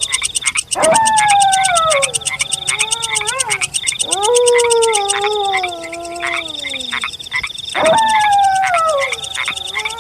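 Wolves howling: three long howls that each slide down in pitch, starting about a second in, about four seconds in and near eight seconds, with two voices overlapping. Under them runs a fast, steady pulsing night chorus of frogs and insects.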